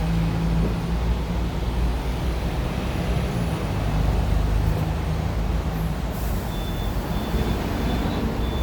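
Hong Kong tram running: a steady low rumble of motor and wheels on the rails. A faint, high, intermittent beeping comes in near the end.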